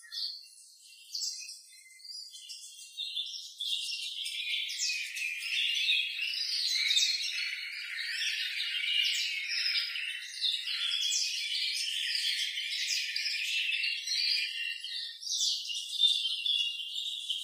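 Many caged male Yu birds, a Chinese white canary breed, singing together: a dense chorus of high trills and warbling chirps that builds up over the first few seconds. The males are in full song as they come into breeding condition.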